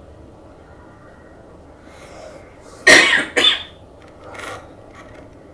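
A person coughing twice in quick succession about three seconds in, then a fainter one, over quiet room tone.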